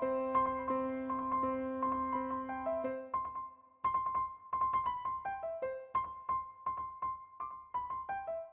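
Background music on electric piano: a melody of struck notes over a held low note, with the low note dropping out about three seconds in.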